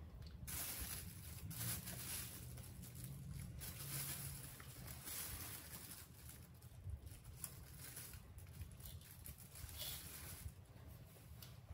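A baby macaque picking food off a plate and eating it: faint, irregular rustling noises over a low steady hum.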